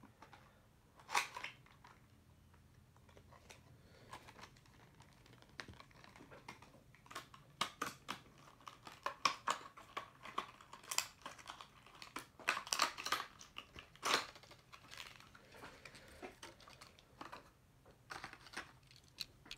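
Cardboard box and plastic packaging of a diecast model car being torn open and handled: scattered crinkles, rips and clicks, sparse at first and busiest through the middle.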